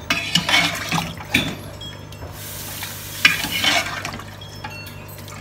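Metal ladle stirring sambar in an open pressure cooker: irregular sloshing strokes of thick liquid, with light scrapes against the pot.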